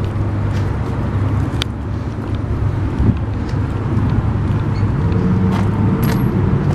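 A motor vehicle's engine running with a steady low hum, its pitch rising a little about five seconds in.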